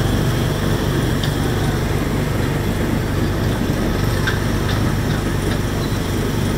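Small engine of a go-kart-style ride car running at a steady speed, a constant low drone heard from the driver's seat as the car drives along its track.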